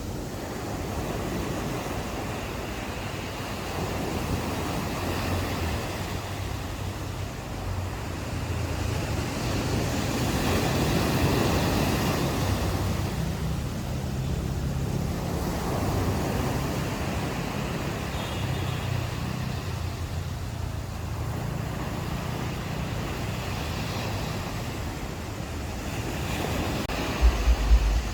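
Ocean waves washing onto a beach, the surf swelling and fading in slow surges over a low rumble. Near the end, wind buffets the microphone in a few low thumps.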